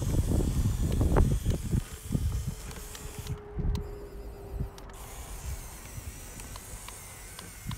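Small RC off-road truck crawling through wet mud while towing a trailer. Its motor and gearbox run with a faint whine, and scattered clicks and a spray-like hiss come from the wheels working the mud. Louder low rumbling in the first two seconds gives way to a quieter stretch.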